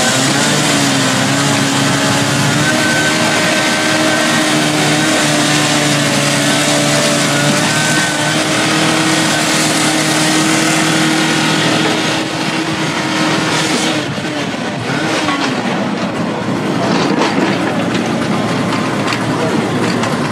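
Excavator's diesel engine running steadily under load over a wash of noise, its pitch dipping and rising briefly about fifteen seconds in. Near the end comes a run of short knocks as the pavement is broken up.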